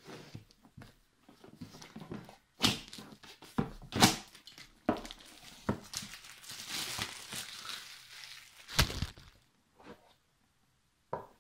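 Plastic shrink-wrap being slit and torn off a cardboard board-game box, crinkling, with scattered knocks and thuds of the box being handled.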